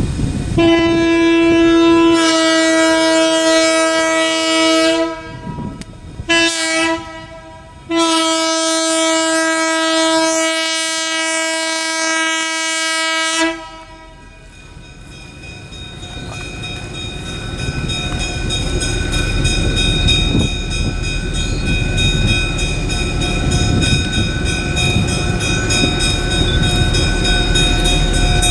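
Multi-tone air horn of an approaching streamlined stainless-steel passenger diesel locomotive, sounding two long blasts, a short one and a long one: the grade-crossing signal. The horn stops about halfway through, and the train's running noise then grows steadily louder as it closes in.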